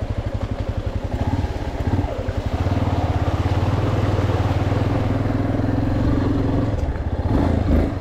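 Yamaha Lander XTZ 250's single-cylinder four-stroke engine running under way, the revs rising about two seconds in, held for several seconds, then easing off near the end.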